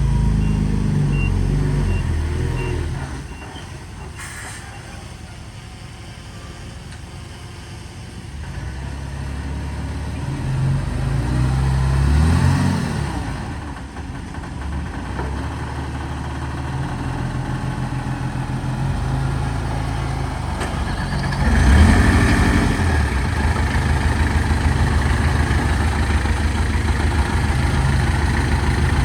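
Heavy diesel engines of a dump truck and bulldozer at work. The engine note drops after about three seconds, swells up near twelve seconds and surges again shortly before twenty-two seconds, then runs steadily. A faint reversing alarm beeps at an even pace in the first three seconds.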